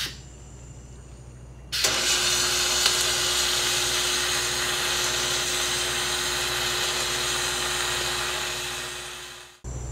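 Electric welding arc on the boat's metal cap rail: it strikes about two seconds in and runs as a steady hiss with a faint hum for about eight seconds, then dies away just before the end.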